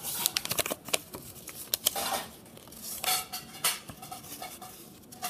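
Sheet of paper rustling and crinkling as it is folded and creased by hand, in irregular short bursts with a few sharp crackles.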